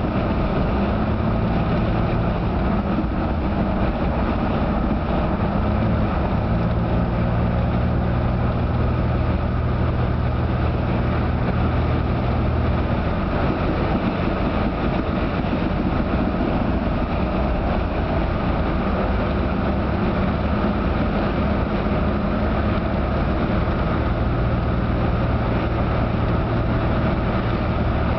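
Steady engine hum and tyre noise of a car driving along a highway, heard from inside the car; the low hum shifts slightly in pitch now and then.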